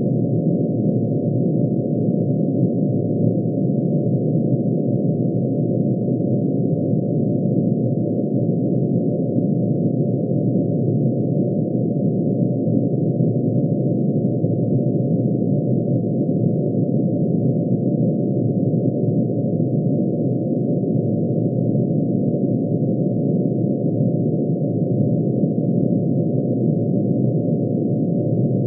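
Synthesized drone made by adding together sine waves, one for each line in mercury's atomic emission spectrum, shifted down into the audible range. It sounds as a dense, low, unchanging hum of many tones at once.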